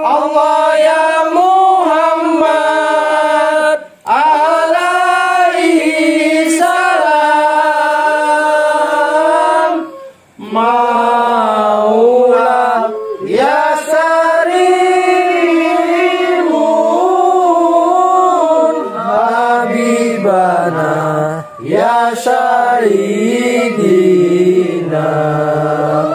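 Chanting in long, held notes that slide up and down in pitch, breaking off briefly about 4 and 10 seconds in.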